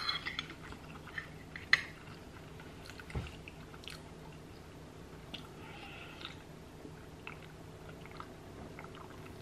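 Close-miked eating sounds: soft chewing and small mouth clicks, with one sharp click about two seconds in, then quiet sips and swallows from an aluminium drink can.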